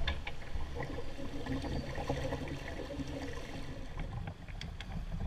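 River water running around a poled canoe, an even wash with a low rumble and a few faint knocks.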